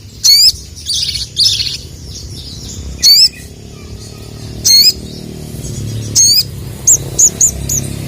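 A male little spiderhunter (sogok ontong) giving loud, sharp single 'cuit' call notes every second or two, then three shorter notes in quick succession near the end. A steady low hum runs underneath.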